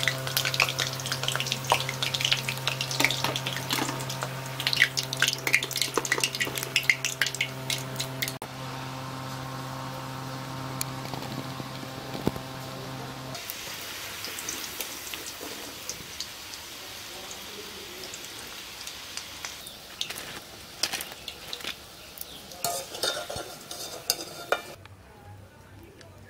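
Soya chunk pakoras deep-frying in hot oil in a wok: dense sizzling and crackling, with occasional clinks of the wire skimmer against the metal. A steady low hum sits under the frying for the first half and cuts off suddenly about halfway through, after which the sizzle is quieter.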